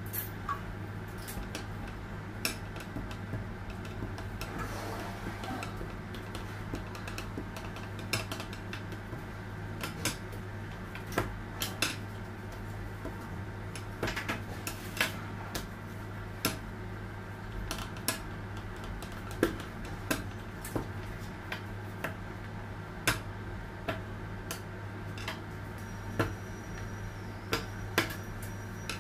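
Irregular sharp clicks and knocks of a rolling pin on a stone countertop as fondant is rolled out thin, over a steady low hum.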